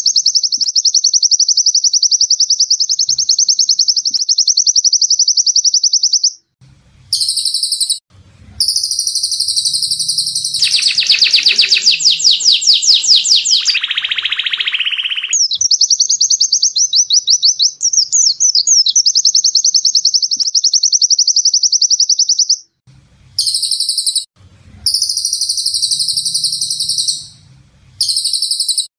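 Caged songbirds singing long, rapid, high-pitched trills, in several spliced takes that start and stop abruptly. A lower, coarser trill joins in for a few seconds in the middle.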